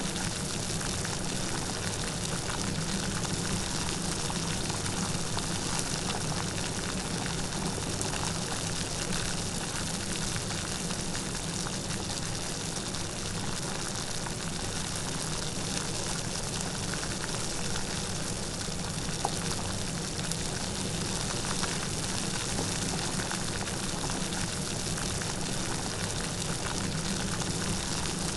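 Steady light rain with many small drops pattering.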